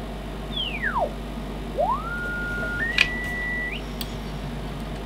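Heterodyne beat-note whistle from the Icom IC-201 transceiver's speaker as the tuning dial is swept across its calibrator signal: a tone sliding down from high to low, then rising again, holding on two steady pitches before climbing away. A sharp click about three seconds in.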